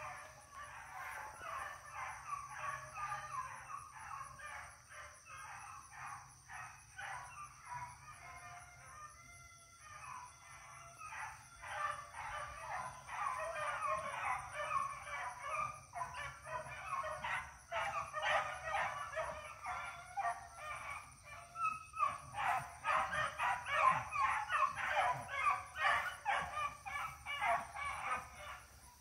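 A pack of rabbit beagles baying continuously as they run a rabbit's track, many voices overlapping. The baying swells louder about halfway through and again in the last few seconds.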